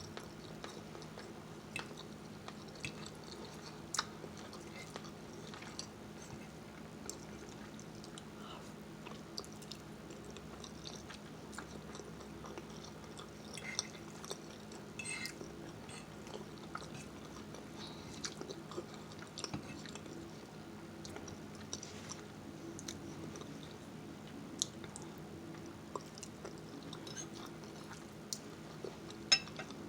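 A person chewing food close to the microphone, with many scattered small mouth clicks, over a faint steady low hum.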